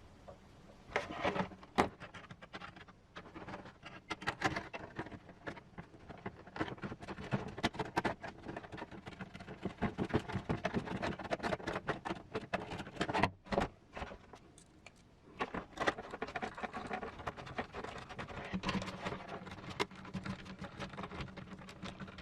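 Small clicks, taps and rattles of hard plastic body parts and small screws being handled and fastened by hand at a workbench, in an irregular run.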